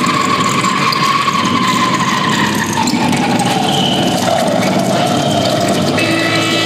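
Harsh noise music played live: a loud, dense wall of distorted noise with a high tone that slides slowly downward in the second half.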